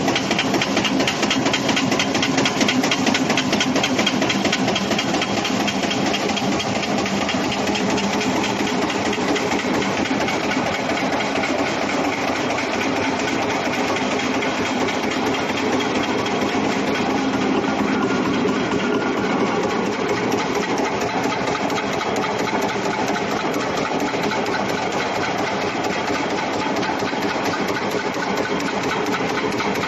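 CNC expanded metal machine running, a steady mechanical clatter of rapid, evenly repeated press strokes as it slits and stretches sheet metal.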